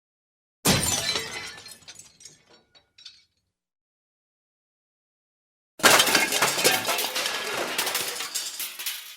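Two glass-breaking sound effects, each a sharp smash followed by shards tinkling. The first decays within about two seconds, with a few stray pieces after it. The second comes a few seconds later and is a longer shatter whose shards keep falling for about three seconds.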